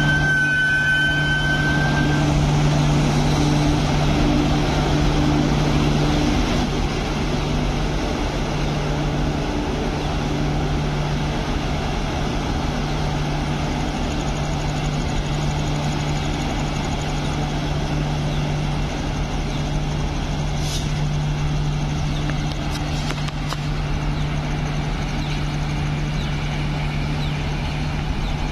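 Steady low diesel engine hum from a standing LHB express train idling at the platform. A brief high tone sounds in the first two seconds, and the hum eases slightly about six seconds in.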